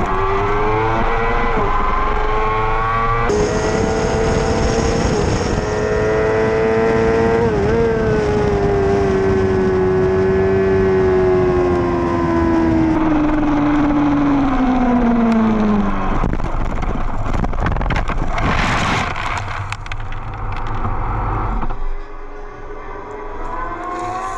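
2017 Yamaha R6's inline-four engine with a Spark exhaust running hard on track, with wind rush on the onboard camera. About twelve seconds in its pitch starts falling steadily, and a few seconds later the engine note stops. Several seconds of rough scraping and rushing noise follow as the bike crashes into the gravel, then the sound drops away.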